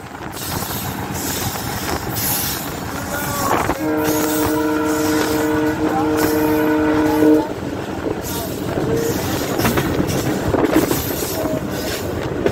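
Diesel locomotive's multi-tone air horn sounding for about three and a half seconds, starting about four seconds in with a brief dip midway, heard from aboard the moving train. Underneath, the steady running noise of the train at speed, wheels on track and wind.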